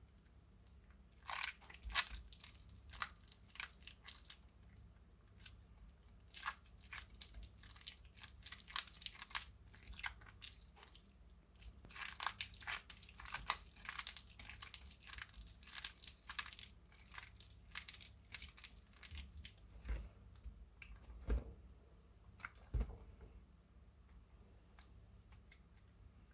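Soaked glycerine soap plates crunching and crackling as they are handled, a dense run of sharp crisp crackles. Near the end the crackling thins out to a few dull knocks.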